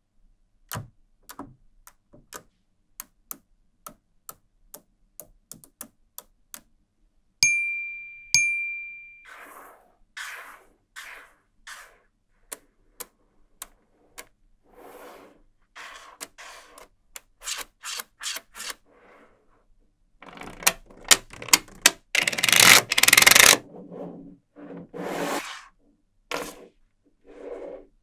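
Small magnetic balls clicking sharply together one by one as they are snapped into place, then rattling and rolling against each other and the tabletop as rows of them are laid out and pushed together, loudest about three-quarters of the way through. Two short ringing dings sound about seven and eight seconds in.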